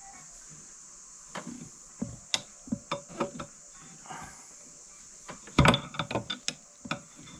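Irregular knocks and clatters from hands-on workshop work on a mower wheel, with a louder burst of clattering about five and a half seconds in, over a steady high hiss.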